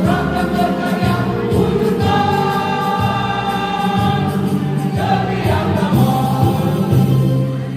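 A choir singing in parts with accompaniment, holding a long sustained chord in the middle before moving on.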